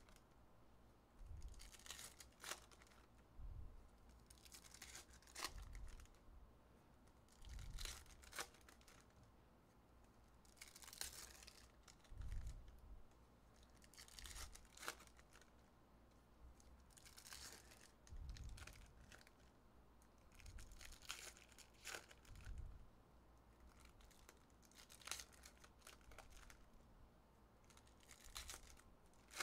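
Faint tearing and crinkling of foil wrappers as 2023 Donruss Optic football card packs are ripped open one after another, a short burst every two to three seconds, some with a soft thump beneath.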